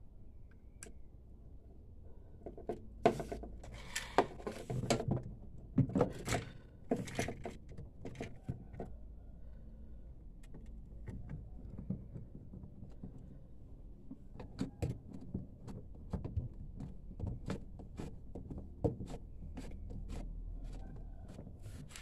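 Plastic and rubber drain-valve parts of a twin-tub washing machine being handled and fitted onto the drain pipe by hand: irregular clicks, knocks and rattles in two busy spells, over a low steady hum.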